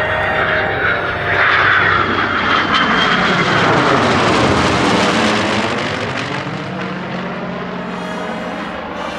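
Loud aircraft flypast: a rushing engine noise that builds, peaks about four to five seconds in and then fades as the aircraft passes and moves away.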